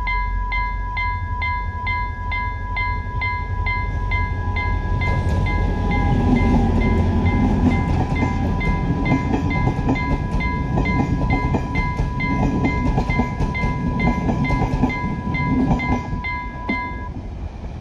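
Level-crossing warning alarm sounding a steady tone with a beeping pulse about two and a half times a second. From about five seconds in, an express diesel multiple unit passes over the crossing with a loud rumble and the clatter of wheels over the rail joints. The alarm cuts off about a second before the end while the train is still going by.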